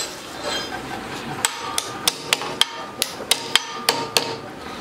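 Hand hammer striking about ten quick blows in a steady rhythm, three to four a second, starting about a second and a half in. Each blow has a short ring.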